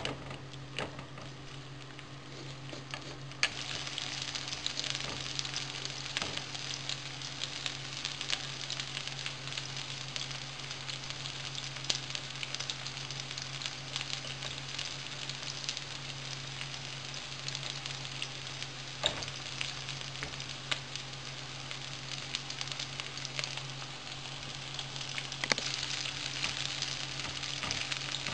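Diced boiled potatoes frying in a pan while being browned: a steady sizzle with fine crackling that grows louder about three seconds in. Now and then a wooden spoon knocks and scrapes against the pan as the potatoes are turned.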